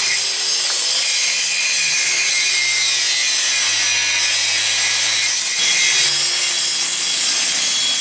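Angle grinder grinding on a steel tube frame: a loud, steady, high-pitched grinding hiss of the disc on metal.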